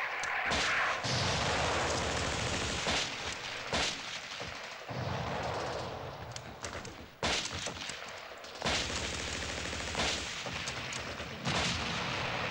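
Battle gunfire: sharp single shots ring out over long stretches of rapid machine-gun fire. The machine-gun fire breaks off briefly around the middle, then starts again.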